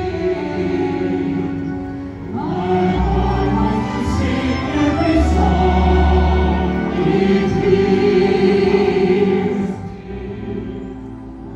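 Choir singing held notes over musical accompaniment with a low bass line, swelling about two and a half seconds in and easing off near the end.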